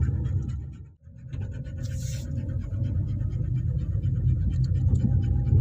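Car cabin noise while driving slowly: a steady low engine and road rumble with a fast, even rattle over it. It cuts out briefly about a second in, then carries on.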